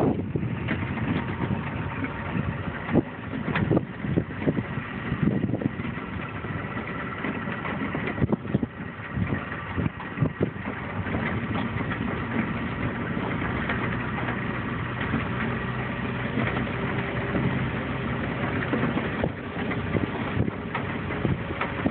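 An engine running steadily, with a faint steady whine, while wind gusts buffet the microphone.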